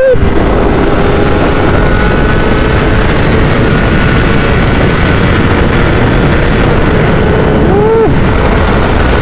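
Honda 600cc four-cylinder motorcycle engine running at high, steady revs at speed, under a heavy rush of wind. Around eight seconds in, the engine note briefly rises and falls.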